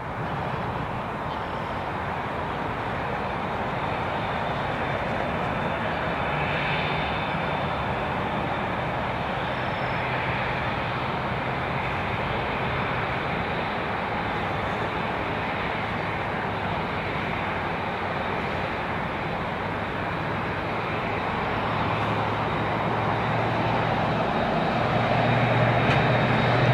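Airbus A380-861's four Engine Alliance GP7200 turbofans running at low taxi power: a steady jet rumble with a thin high tone, growing louder as the airliner rolls closer, loudest near the end.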